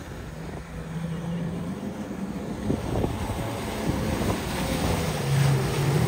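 Yamaha WaveRunner jet ski engines running at speed over open water, a steady engine drone with wind rushing on the microphone, growing louder toward the end as the second jet ski comes alongside.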